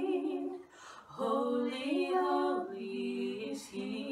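Two women singing together a cappella. They hold a note, break off briefly for breath about a second in, then start a new phrase that steps up and down in pitch.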